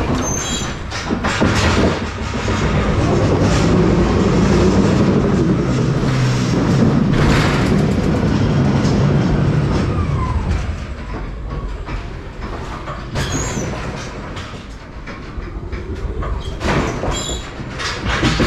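Electric stand-on pallet truck driving along the trailer floor: a steady rolling rumble and clatter, with sharp knocks now and then. A whine falls in pitch about halfway through.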